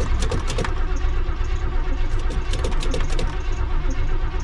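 Chevrolet Camaro Z28's V8 cranking over on the starter with an even pulsing beat, turning but not catching: a car that won't start.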